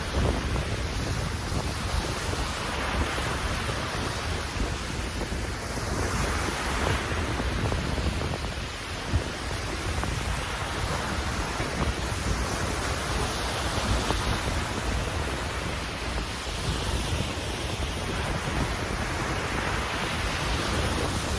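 Sea waves washing in, swelling every few seconds, with wind rumbling on the microphone.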